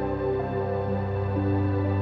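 Background music: a slow, soft ambient piece of held notes that shift to new pitches every half second or so.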